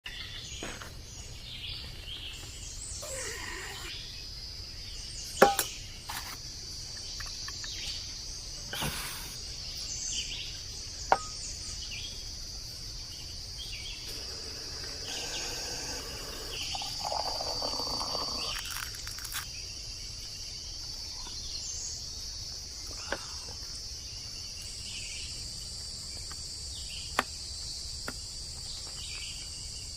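Steady high chirring of night insects, with a few sharp clicks or knocks scattered through and a brief rustling stretch around the middle.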